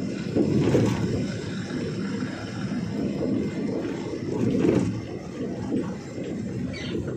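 Truck on the move: engine and road noise, a rumble that rises and falls without any clear tone.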